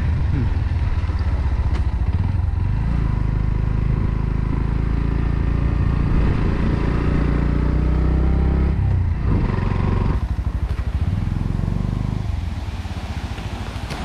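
Motorcycle engine running while riding. Its note dips and rises near the start and again about nine seconds in, and it grows quieter in the last couple of seconds.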